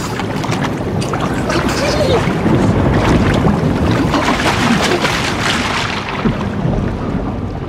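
Swamp water splashing and sloshing heavily as someone struggles in it, sinking. The churning builds to a peak about three seconds in and dies away toward the end.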